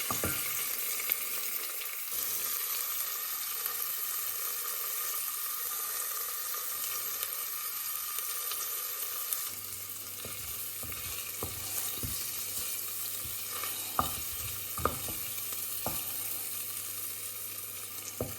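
Garlic, bay leaves and parsley sizzling in a pot over low heat, a steady hiss, with a few light clicks in the second half.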